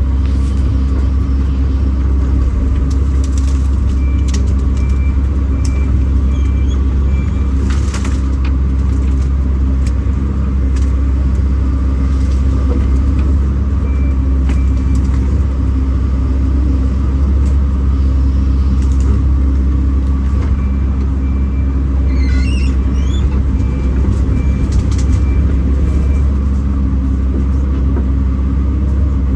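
Kobelco SK210 excavator's diesel engine running steadily under hydraulic work, with a few short knocks and cracks over it.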